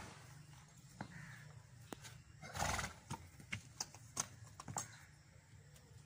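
A horse gives one short, loud snort or call a little before halfway. Several sharp knocks of its hooves on hard ground follow as it shifts about.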